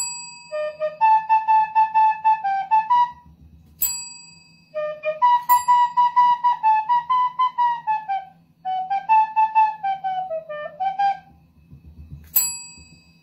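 A desk service bell rung under a dog's paw, four bright dings: at the start, about four seconds in, about five and a half seconds in, and near the end. Between the dings, short phrases of a tune played note by note on a flute-like wind instrument.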